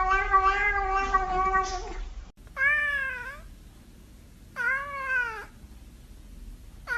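A cat's long, wavering yowl that stops about two seconds in. After a cut, a cat meows twice, about two seconds apart, and a third meow begins at the very end.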